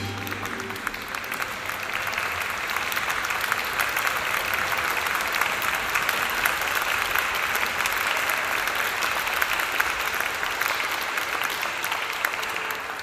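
Concert audience applauding steadily, with the band's last low note fading out under the clapping in the first second or so.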